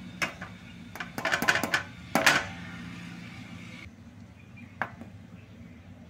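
Green plastic measuring cup knocking and scraping against a steel mixer jar while gram flour is scooped, pressed down and tipped in. A scatter of light clicks, a cluster about a second in, the loudest knock just past two seconds, and one more knock later on.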